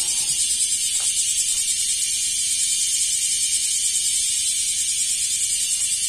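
Cicadas singing in a loud, steady, high-pitched buzzing chorus with a fast pulsing grain.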